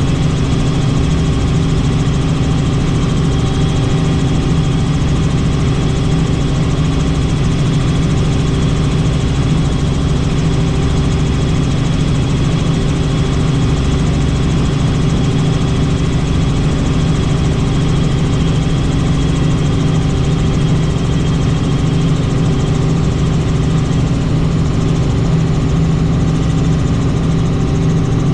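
Helicopter in flight: a steady, loud drone of rotor and turbine engine, with a faint high whine that fades out about three-quarters of the way through.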